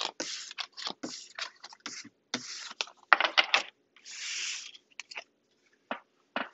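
A deck of tarot cards being shuffled by hand in quick, rhythmic rustles. About four seconds in comes one longer rustle, followed by a few light taps as cards are set down on the table.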